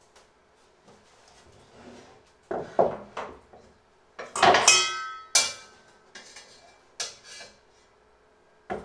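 Kitchen clatter of metal tongs, an enamelled cast iron Dutch oven and wooden cutting boards being knocked together while a baked loaf is lifted out of the pot. A string of sharp knocks starts a few seconds in, and the loudest, about halfway through, is a metallic clang that rings on briefly. One last knock comes near the end.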